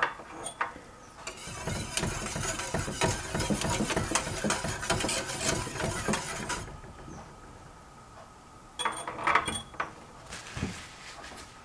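Wire balloon whisk beating milk in a stainless steel saucepan: a rapid scraping clatter of metal wires against the pan for about five seconds. A few clinks follow near the end as the whisk is set down in a glass jar.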